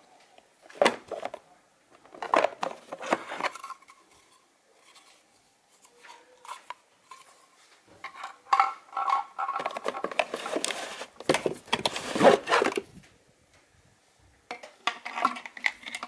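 Hard plastic vacuum-cleaner attachments and a corrugated plastic hose clattering and rattling as they are handled, pulled out of a cardboard box and set down on concrete. The sound comes in irregular bursts of knocks and rustling, with the longest, loudest stretch about two-thirds of the way through.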